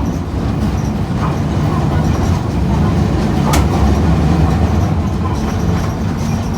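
Ride inside a moving streetcar: steady low rumble of the running gear and motor, with a sharp click about three and a half seconds in.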